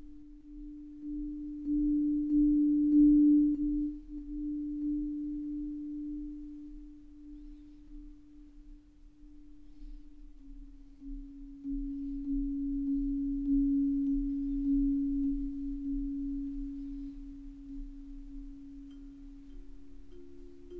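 Ambient background music of long, pure held notes that swell and fade. The note steps slightly lower about ten seconds in, and a higher note joins near the end, over a faint low hum.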